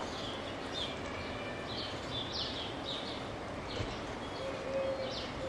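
Birds chirping in quick, irregular short calls over a steady background hiss, with a lower, long drawn-out note near the end.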